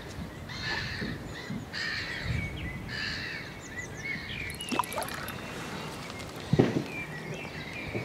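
Small birds chirping and singing in short repeated phrases over a low outdoor rumble, with two brief sharp knocks in the middle, the second louder.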